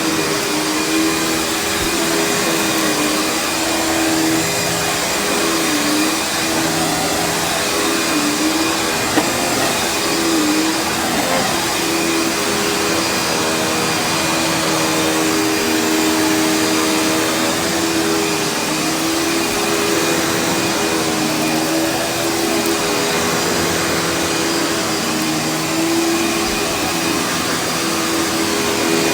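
Panasonic vacuum cleaner with its brush roll running over carpet: a loud, steady motor whine over a rush of airflow, the motor pitch dipping briefly now and then as the vacuum is pushed and pulled.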